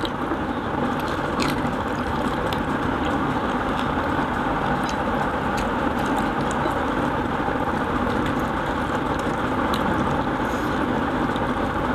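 A steady machine-like hum, with faint scattered clicks of fingers and food on plates as people eat rice and curry by hand.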